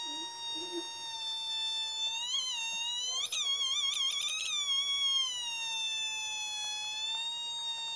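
Mini theremin sounding a steady high electronic tone. From about two to five seconds in, its pitch bends upward and wavers as the cat moves close to its antenna, then it settles back to the steady pitch.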